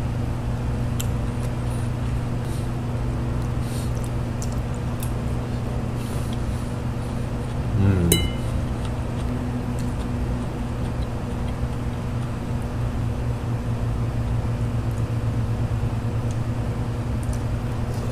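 Steady low electric hum of a running window fan. Light clinks of a metal fork, and a brief voice sound about eight seconds in.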